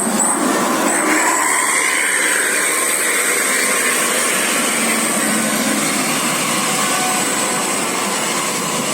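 A large tour bus passing with a steady rushing of engine and road noise, under a thin, steady high whine.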